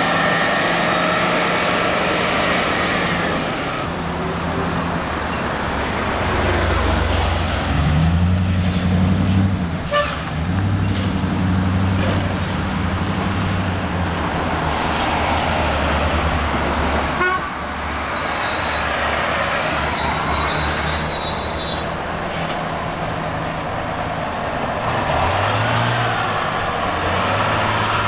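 City buses passing one after another, diesel engines running and rising in pitch as they pull away, with traffic noise throughout.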